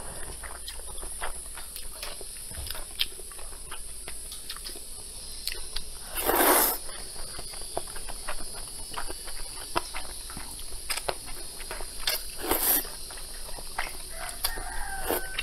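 A person slurping and chewing noodles close to the microphone, with many small wet mouth clicks. There are two longer slurps, the loudest about six seconds in and another about twelve seconds in. A short pitched call sounds near the end.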